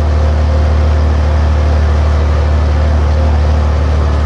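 John Deere 4020 tractor's six-cylinder engine running steadily and loud while under way towing a round baler, heard through the open cab windows.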